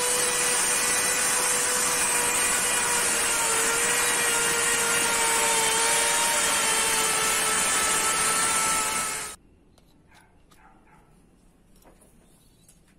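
Electric woodworking power tool running with a steady high whine over dense cutting noise. It cuts off suddenly about nine seconds in, leaving only low background sound with a few faint knocks.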